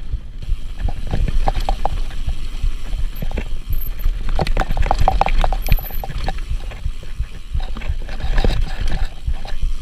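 Mountain bike riding fast down a dirt forest trail: wind rumble on the camera microphone, tyre noise on the dirt, and the bike rattling and clattering, with a dense run of clatter over rocky ground about four to six seconds in.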